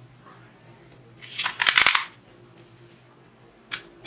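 Plastic toy revolver shooting game: a short cluster of sharp plastic clicks and clatter about a second and a half in, then a single faint click near the end.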